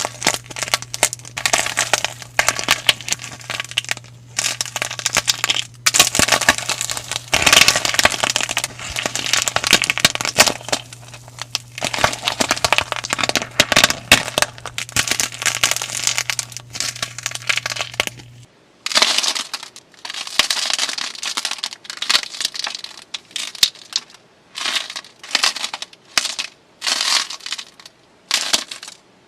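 Slime being squeezed and kneaded by hand, making dense crackly, popping squishes. About two-thirds of the way through the sound changes to separate squeezes, about one a second.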